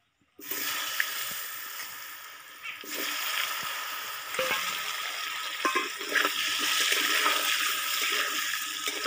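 Potato chunks sizzling steadily in hot oil in a wide aluminium kadai, starting about half a second in, with a few short scrapes of a spatula against the pan.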